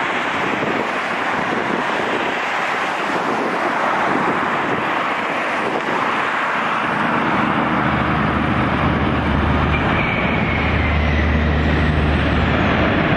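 Boeing 787 Dreamliner with GEnx-1B engines landing: a steady rush of jet noise on the flare, then a deep rumble from about seven seconds in as it touches down and rolls out. Near the end there is a faint high whine falling slowly in pitch.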